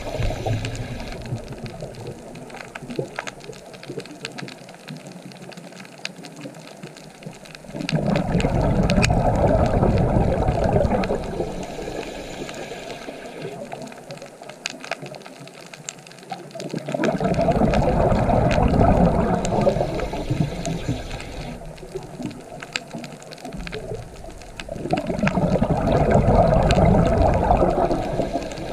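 Scuba diver's exhaled bubbles rushing from the regulator underwater, three long bursts about 8 seconds apart, with faint clicking in the quieter stretches between breaths.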